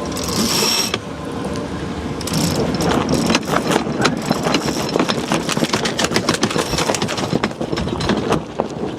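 Sailboat sheet winch ratcheting in a fast run of clicks as the foresail sheet is hauled in during a tack, over wind noise. A short rushing hiss comes about half a second in.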